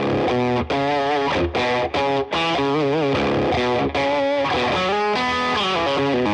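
Music: a song intro led by a distorted electric guitar, with bending, wavering notes.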